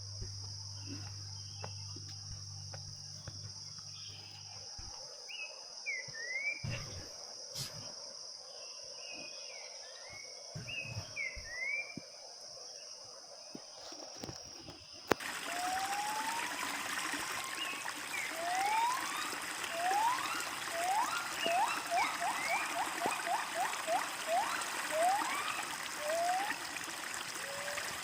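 Forest ambience: a steady high insect drone with scattered short bird chirps. About halfway through it cuts to a flowing stream, over which some animal gives a run of quick rising whistled calls, several a second for a few seconds.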